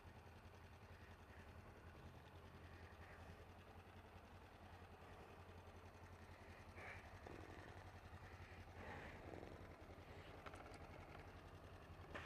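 Kawasaki Ninja 500R's parallel-twin engine idling steadily, faint, with a couple of soft rustles about seven and nine seconds in.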